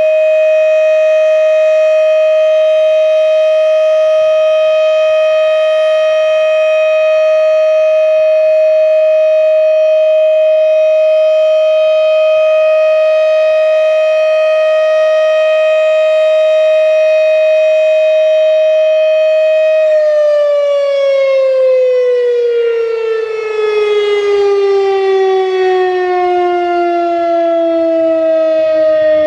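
Federal Signal Thunderbeam RSH-10 electromechanical warning siren sounding the steady Full Alert tone, loud and unwavering in pitch. About two-thirds of the way through, the signal ends and the siren winds down, its pitch falling steadily.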